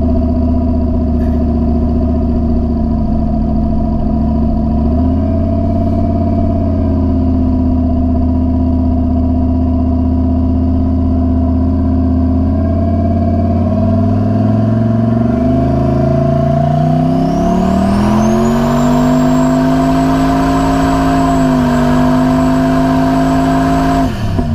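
Turbocharged LS V8 heard from inside the cab, running steadily at cruise, then accelerating hard from about halfway: the engine pitch climbs while a high turbo whistle rises and holds under about 10 psi of boost. Near the end the throttle is lifted and the pitch drops suddenly.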